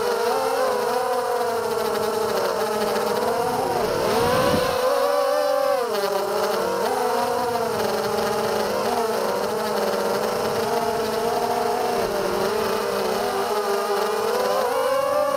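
A 250-size FPV racing quadcopter's four brushless motors (DYS BE1806 2300KV on HQ 5040 props) whining, the pitch rising and falling with the throttle. The whine rises sharply and drops away about four to six seconds in, and again near the end. It is heard through the onboard HD camera's microphone.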